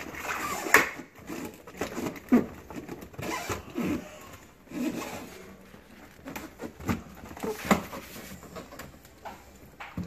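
Plastic evaporator shroud of a GE refrigerator being handled and pressed into place: irregular knocks, clicks and rubbing of plastic against the compartment wall.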